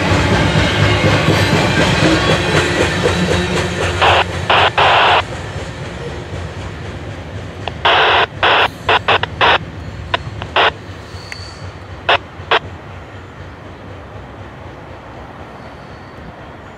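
Loaded coal hopper cars of a freight train rolling past and moving away, their steel wheels rumbling and clattering over the rails. Short harsh bursts of wheel noise come in two spells, near a quarter of the way in and again around the middle. The sound fades steadily as the end of the train recedes.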